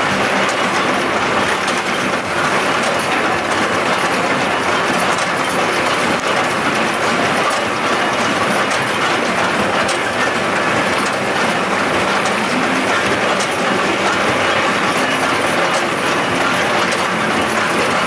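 John Deere 7530 tractor's six-cylinder diesel running steadily under load, driving a Claas Quadrant 2100 square baler whose pick-up, feeder and plunger keep up a continuous mechanical clatter of fine clicks and rattles as it packs haylage into bales.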